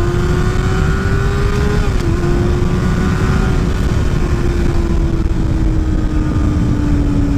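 Sport motorcycle engine held at high revs, its note climbing slightly, dipping briefly about two seconds in, then slowly falling, over a heavy low rumble. Its sound is put down to a Two Brothers aftermarket exhaust.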